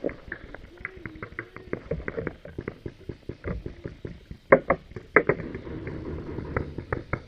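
Paintball markers firing in rapid, irregular strings of sharp pops, several shots a second, with the loudest shots about four and a half and five seconds in.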